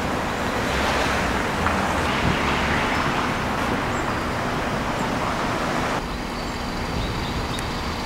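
Outdoor street ambience: a steady wash of road traffic noise. It drops a little about six seconds in, with a few faint high ticks after.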